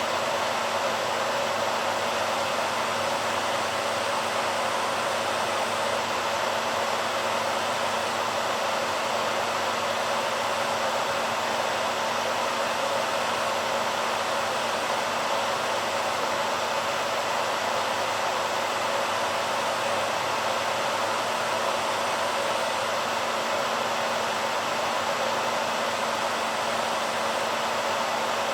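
BaByliss hairdryer running steadily: an even rush of blown air, strongest in the middle range, with a steady low hum under it.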